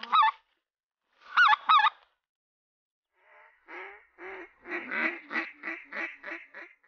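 Goose calls: one high call at the start and a quick pair about a second and a half in, then from about three seconds a fast run of shorter notes, about four a second, growing louder.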